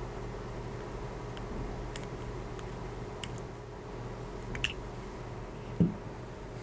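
Faint scattered clicks of a 3/32 Allen wrench working small screws into a memory module's heat-spreader fin, with one duller, louder thump a little before the end, over a steady low hum.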